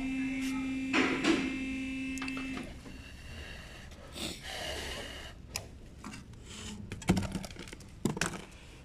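A small electric motor whirs steadily for about two and a half seconds, then stops: the headlamp's high-beam actuator motor running. Sharp clicks and taps of hand tools on the plastic headlamp housing follow, loudest near the end.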